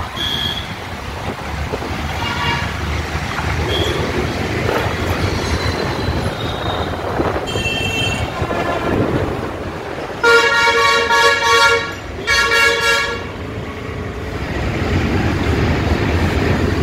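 Street traffic noise with a horn sounded twice about ten seconds in: a blast of about a second and a half, then a shorter one, each a single steady note. These two blasts are the loudest sounds.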